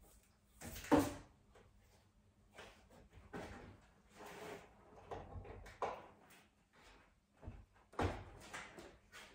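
Irregular knocks, bumps and scrapes, the loudest about a second in and another about eight seconds in, with some rustling in between.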